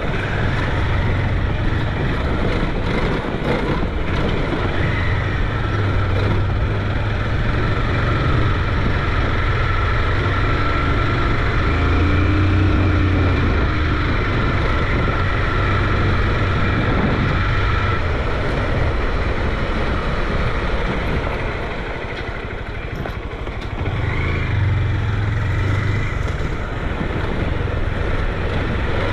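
Motorcycle engine running while riding along, with heavy wind and road noise on the microphone. It eases off briefly about three-quarters of the way through.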